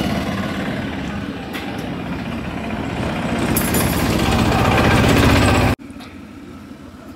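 A heavy diesel truck engine running close by with a fast rattle, growing louder over several seconds, then cut off abruptly about six seconds in, leaving quieter street noise.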